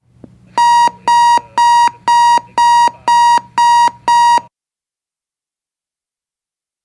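Electronic alarm clock beeping: eight short, evenly spaced beeps of one steady high tone, about two a second, over a faint low hum.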